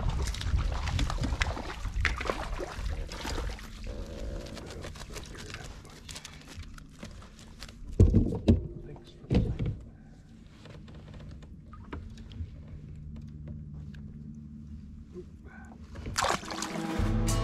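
Handling noise aboard a plastic fishing kayak as a bass is landed: clicks and rustles, then two loud thumps about eight and nine seconds in. Guitar music starts near the end.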